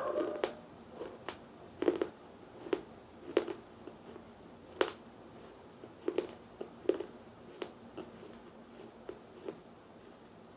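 Sharp, irregular crunches of baked clay being bitten and chewed, about one or two a second: a small clay diya being eaten.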